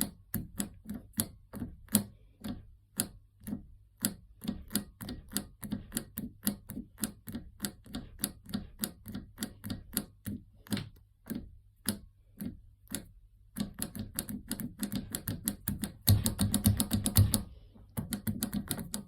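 Repeated sharp mechanical clicks, a few a second, with a short pause and then a quick dense run of clicking near the end.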